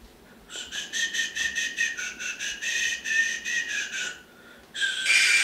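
A high, warbling whistle that pulses about seven times a second with a slightly wavering pitch and stops about four seconds in. It is followed near the end by a short, louder whistled note with a hiss.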